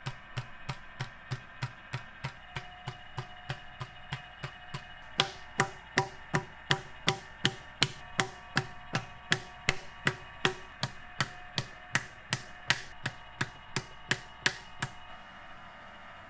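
Wooden paddle beating the wet clay wall of a large onggi jar, a steady run of knocks about three a second. The knocks grow louder about five seconds in and stop near the end.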